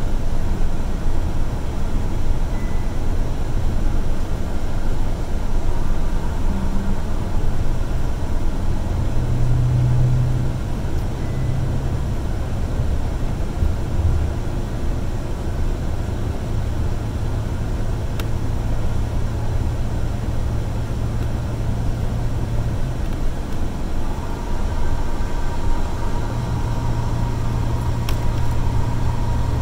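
City transit bus running at highway speed: a steady low engine drone over tyre and road noise. Near the end the engine note shifts and a faint high whine comes in.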